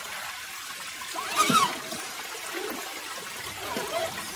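Creek water trickling steadily, with one brief, louder sound about a second and a half in.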